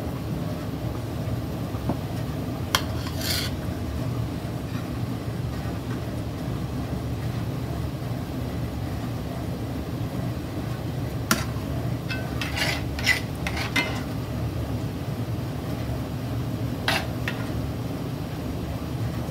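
A metal serving spoon scraping and clinking against a stainless steel pot and ceramic plates while scooping mashed potatoes and gravy, over a steady low hum. A few sharp clinks come about three seconds in, a quick run of them past the middle, and one more near the end.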